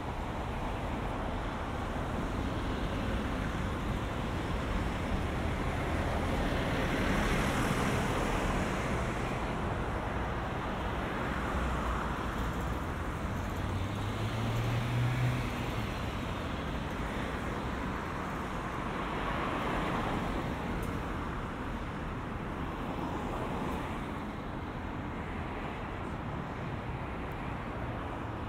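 Urban road traffic: a steady hum of vehicles that swells several times as cars pass, with a brief rising engine note about halfway through.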